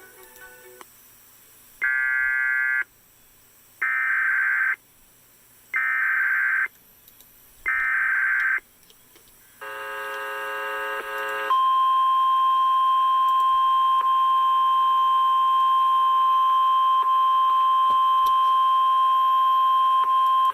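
Emergency Alert System tornado warning from the National Weather Service: four data bursts of about a second each, a second apart, then a short buzzy tone and a steady single-pitch weather-radio warning alarm tone held for about nine seconds.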